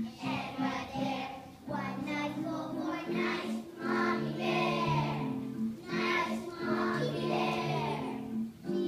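A group of young children singing a song together over a musical accompaniment, in phrases with brief pauses between them.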